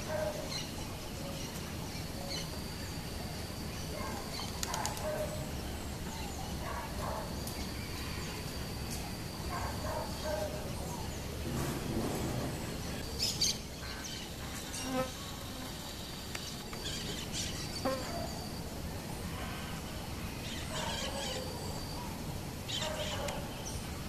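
Insects droning on one steady high pitch that fades in and out, with scattered short bird calls and chirps over it.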